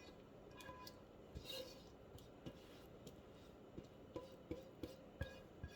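Faint, scattered clinks and taps of a serving utensil against a bowl as noodles are dished up, a few of the knocks briefly ringing.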